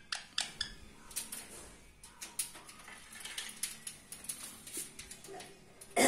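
Scattered light clicks and metallic taps from Indian ringneck parakeets' claws and beaks on a wire-mesh cage top, coming irregularly several times a second.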